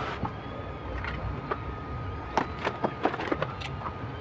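Scattered light clicks and taps from handling the small plastic and metal parts of a disassembled smart plug, bunched together from a little past the middle onward.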